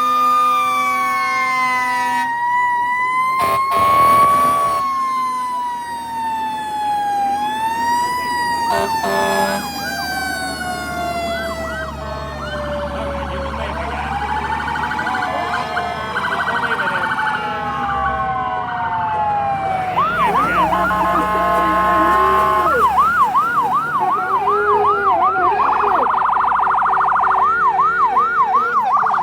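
Emergency vehicle sirens, several tones overlapping. Slow wails glide up and down for the first part, with a short loud burst of noise about four seconds in. From about two-thirds of the way through, a fast repeating yelp takes over.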